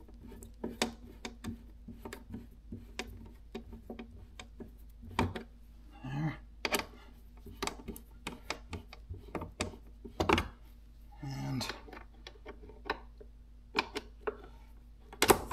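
Scattered small clicks and ticks from a hand-turned hex driver tightening stainless 5 mm screws through a clear plastic motorcycle air deflector, the tool and screws knocking against the plastic as they turn.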